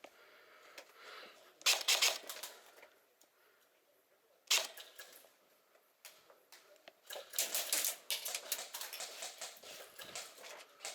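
Airsoft guns firing in quick bursts of sharp clicks, first a short burst and a single shot, then a denser run of rapid shots in the last few seconds.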